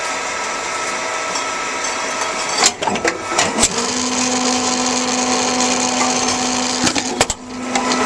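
Tomra Tx2 reverse vending machine running its motor to spin a bottle so the scanner can read the barcode: a steady whir, a few clicks or knocks about three seconds in, then a steady hum that comes in near four seconds and breaks off briefly near the end.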